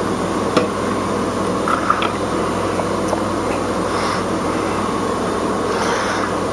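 Steady indoor hum and hiss of background machine noise, with a few light taps near half a second and two seconds in as chopped garlic is pushed off a plate by hand.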